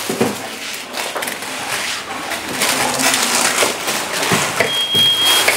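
Continuous rustling and handling noise with scattered small clicks, like paper or plastic sheets being handled. Near the end there is a brief high, steady beep.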